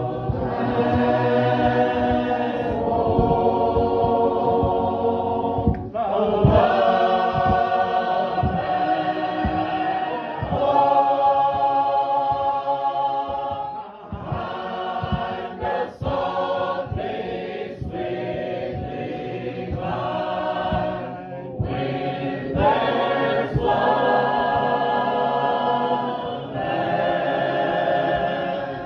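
A congregation singing a hymn together in many voices, in phrases of long held notes with short breaks between them.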